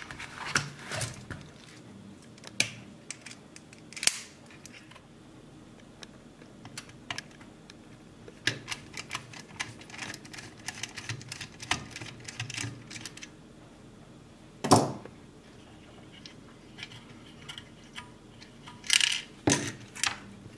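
Small clicks and taps of a Wera screwdriver and bit being fitted together and turned to back a screw out of the white plastic housing of an IKEA TRETAKT smart plug, with a few sharper knocks of tool and plug being handled, the loudest about fifteen seconds in and two close together near the end.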